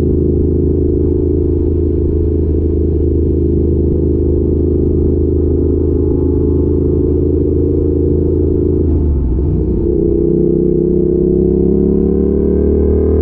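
Yamaha YZF R7's 689 cc parallel-twin engine running through an Arrow exhaust, holding a steady note under way. About two-thirds of the way through the note breaks up briefly, then its pitch climbs slowly as the bike picks up speed.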